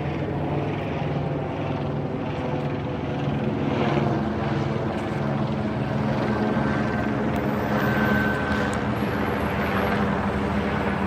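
A steady engine drone, a low hum with an even pitch.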